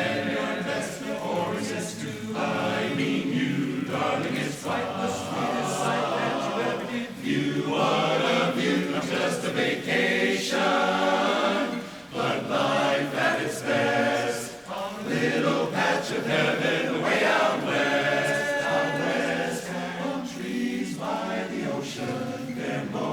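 Barbershop chorus singing a cappella in close four-part harmony, with two brief breaks between phrases.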